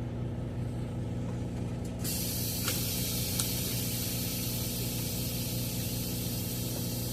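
Semi-truck engine idling steadily, heard from the cab; about two seconds in, a loud, even hiss of air or spray starts abruptly and keeps going.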